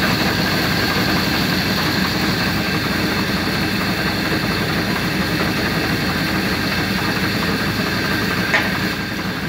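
Steady machine drone, like an engine idling, with one brief click near the end.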